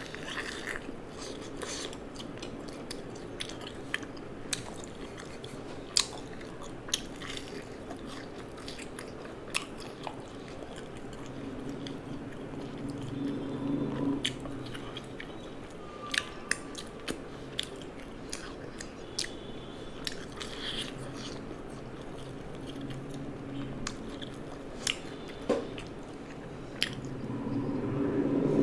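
A person chewing and biting crunchy food close to the microphone, with sharp crunches every second or two.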